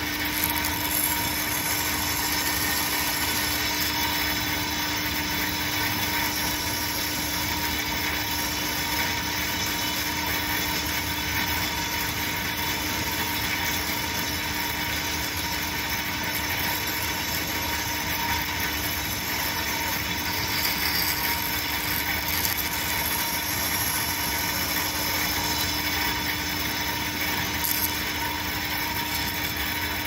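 Band saw running steadily, its blade cutting a small square notch into a wooden block.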